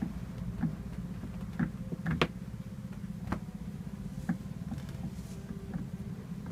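A towel rustling and being handled on a massage bed, several short rustles and soft knocks, the sharpest a little past two seconds in, over a steady low hum.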